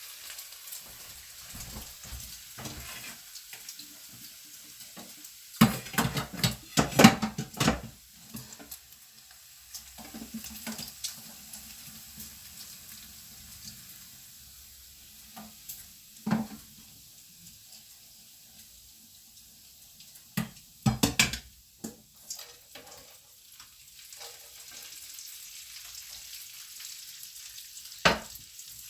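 Bacon sizzling in a frying pan with a steady faint hiss, broken by clattering knocks of a utensil and the pan being handled as the bacon grease is strained off; the loudest clatters come in clusters about six to eight seconds in and again around twenty-one seconds, with a single sharp knock near the end.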